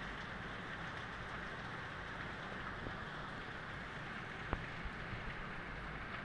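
Steady rain falling, an even hiss, with one sharp tick of a drop striking something close about four and a half seconds in.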